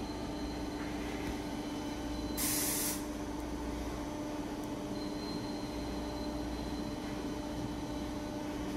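Steady mechanical hum with a constant mid-pitched tone, and a short burst of hissing air lasting about half a second, about two and a half seconds in.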